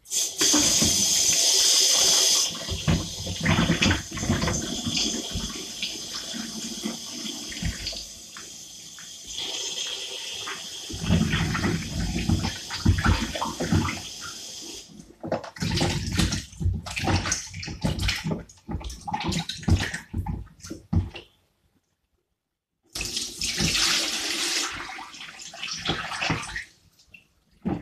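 Kitchen tap running into a sink while cut sweet potatoes are washed by hand, with splashing and knocks of the pieces and the bowl. The tap runs hard at the start and again near the end, with a brief silent break between.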